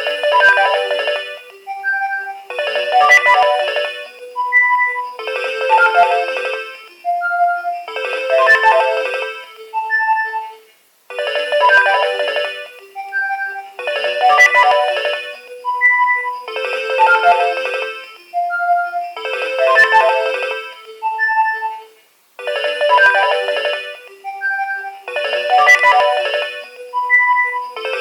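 Nokia 2300 mobile phone playing a polyphonic ringtone through its loudspeaker. It starts suddenly, and short clusters of several notes sounding together alternate with single notes about every three seconds. The tune repeats roughly every eleven seconds, with a brief break each time.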